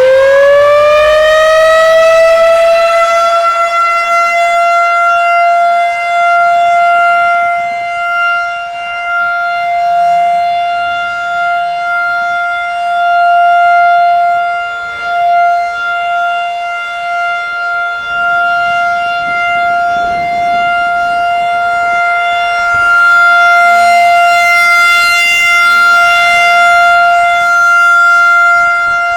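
Federal Signal 2001-SRN outdoor warning siren finishing its wind-up to full pitch in the first few seconds, then holding one steady tone. Its loudness swells and fades over and over as the rotating head sweeps past. It is sounding a routine weekly test signal.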